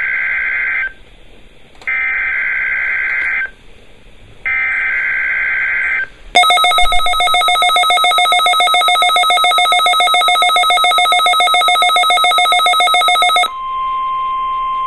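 NOAA Weather Radio alert tones: three one-second bursts of screeching SAME digital header data with short gaps, then a rapid pulsing electronic ring for about seven seconds, likely the weather radio's own alert alarm. About a second before the end, the steady 1050 Hz warning alarm tone begins, which opens the weekly test broadcast.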